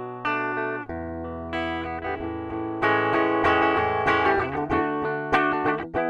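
Swing C1 Plus Les Paul–style electric guitar played on a clean tone through its bridge humbucker: ringing chords and picked notes. The playing grows brighter and busier about three seconds in, with short chopped chord stabs near the end.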